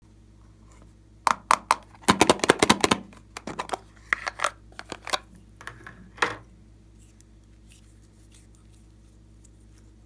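A run of sharp clicks, crackles and taps in quick clusters from hands handling slime-making materials, densest about two seconds in and stopping a little after halfway, over a faint steady hum.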